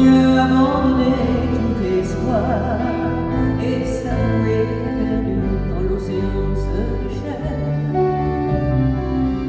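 A woman singing a slow song live with a band, with a bass guitar holding low notes underneath.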